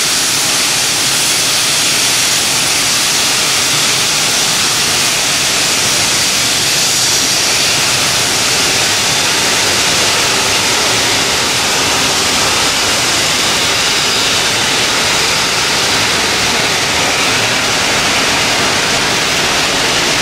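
Steady rushing of water over the stones of a shallow rocky creek.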